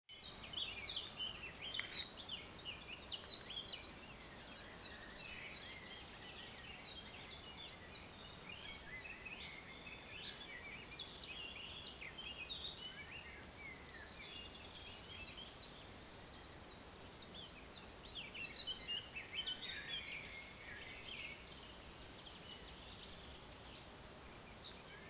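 Small birds chirping and twittering in short high notes, busiest near the start, around the middle and again near the end, over a faint steady background hiss.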